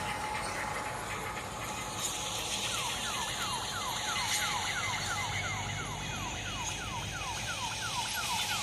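A machine engine running steadily. From about three seconds in, a repeating falling electronic tone sounds over it, about three times a second, like a warning beeper or siren.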